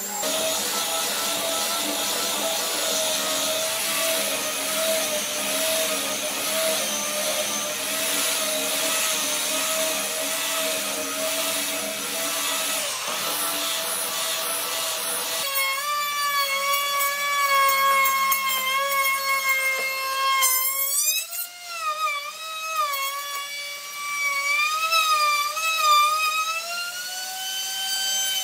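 Electric belt sander running on a solid wood panel, a steady abrasive hiss with a hum. About halfway through it cuts suddenly to an electric plunge router's high whine, whose pitch rises and falls repeatedly in the later part.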